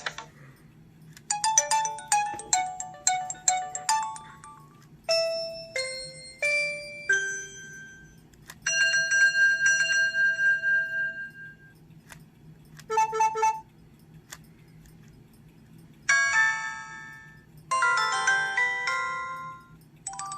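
An LG Shine (CU720) flip phone playing its built-in message alert tones one after another through its small speaker. There are about six short electronic jingles and chimes with brief pauses between them. One is a single chime held for about three seconds.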